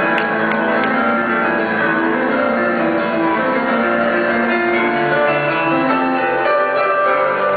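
Bachata music playing steadily, melodic and without singing breaks.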